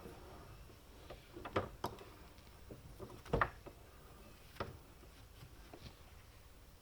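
A few scattered light knocks and clicks, the loudest about three and a half seconds in: a small adapter ferrule and tools being handled and set in a bench vise.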